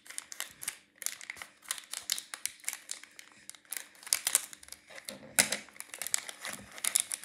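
Paper toy packaging being crinkled and torn open by hand, in quick, irregular crackles and clicks.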